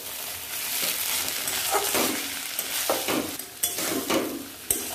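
Grated papaya and potato frying in ghee in a metal kadai while a spatula stirs it: a steady sizzle with repeated scraping strokes of the spatula against the pan, and a sharp tap near the end.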